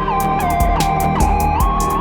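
Roland System-8 synthesizer patch: a high lead voice sliding back and forth between two notes with portamento glides, over a low sustained bass part and fast, even ticking hits.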